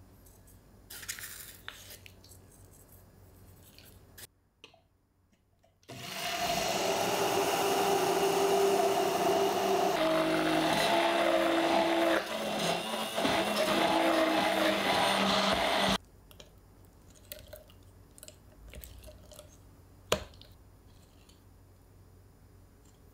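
Hand-held immersion blender running in a tall beaker to purée silken tofu batter until smooth. It starts about six seconds in, runs steadily with its hum shifting in pitch a few times, and cuts off suddenly about ten seconds later. Afterwards come light scraping and a sharp tap from a spatula stirring the batter in the beaker.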